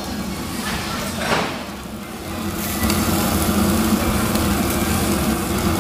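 Beef ribs sizzling on a tabletop grill over a steady low hum. The sizzle grows louder about three seconds in.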